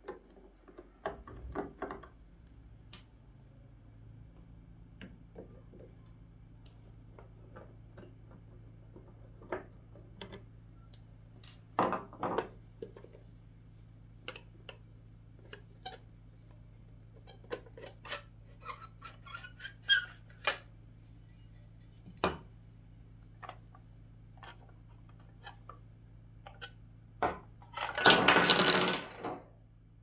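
Metal casing and screws of a PreSonus Studio 68c audio interface being handled as it is taken apart: scattered light clicks and taps, then near the end a louder scraping rattle lasting about a second as the metal shell is slid off the circuit board.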